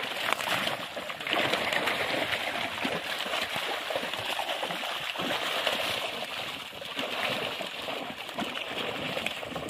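Shallow water splashing and sloshing around a fishing net being hauled through it by hand, louder from about a second in.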